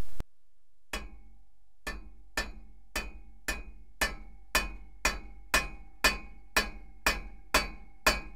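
Hammer blows on the steel of a driveshaft U-joint, driving its bearing caps, about two a second. Each strike rings briefly, and the blows generally grow louder.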